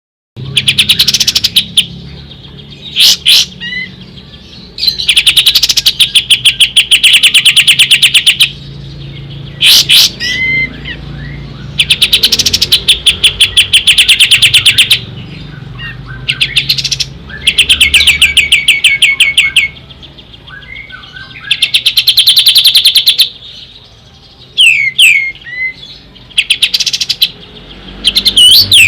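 Kapas tembak bulbul singing: long, fast rattling trills of a few seconds each, repeated about six times, with short swooping whistled notes between them.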